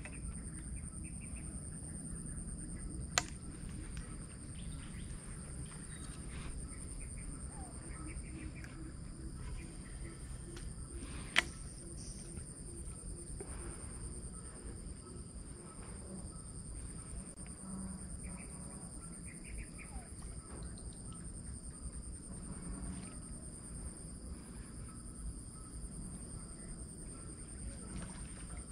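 Jungle ambience with a steady high-pitched insect drone and faint bird calls, broken by two sharp clicks, one about three seconds in and one about eleven seconds in.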